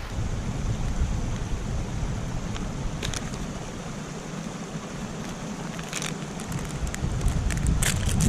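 Wind buffeting the microphone as a steady low rumble, with a few sharp crackles about three, six and eight seconds in.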